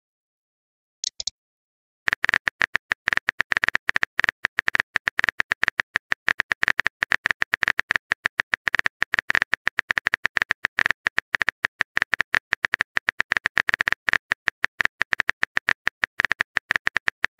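Rapid run of phone-keyboard typing clicks, a sound effect playing as a text message is typed out letter by letter; a short high blip about a second in, then clicks begin about two seconds in and carry on steadily without pause.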